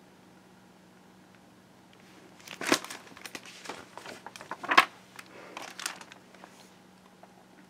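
Handling noise as a picture book's page is turned: irregular paper and cloth rustling and crinkling, starting about two seconds in, with two louder crackles about three and five seconds in, dying away near the end.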